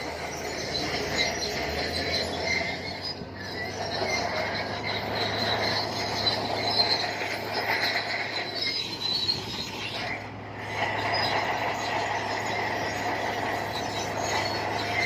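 Crawler bulldozer working, its diesel engine running with a steady low hum while the steel tracks squeal as it moves. The sound dips briefly twice, about three seconds in and again about ten seconds in.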